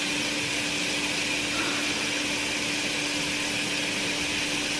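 Fan running steadily: an even hiss with a low, steady hum underneath.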